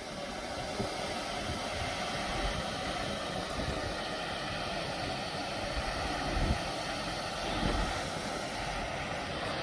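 Steady rushing of water pouring over a grist mill's dam spillway into the creek below.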